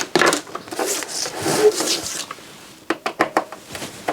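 Parts of a DVD receiver being handled and taken apart: scraping and rubbing of casing parts and screws, then a few sharp clicks about three seconds in.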